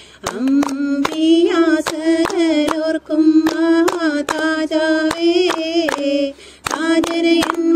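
Women singing a traditional hand-clapping folk song (kai kotti pattu), with a steady rhythm of hand claps under the melody. The singing breaks briefly near the end.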